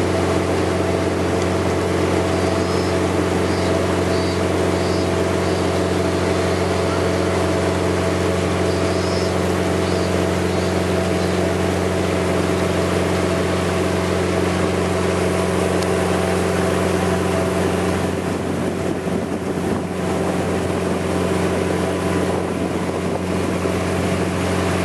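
Sightseeing cruise boat's engine running at a steady cruising drone, with water rushing past the hull.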